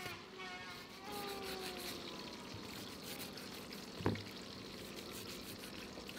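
Cleaver chopping on a thick wooden chopping block: one sharp, solid chop about four seconds in, with lighter slicing over faint background noise around it.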